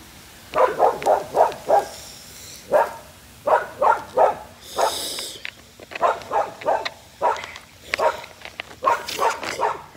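A dog barking repeatedly in quick runs of several short barks.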